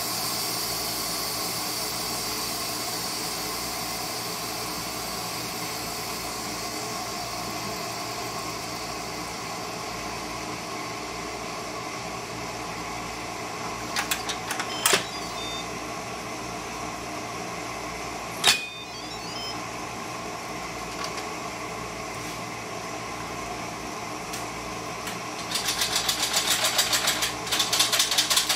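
Instant Pot pressure cooker letting off the last of its steam as a high hiss that fades away over the first several seconds. A few sharp plastic clicks follow as the lid is turned and unlatched. Near the end comes a fast rattling run of clicks as the lid is worked off.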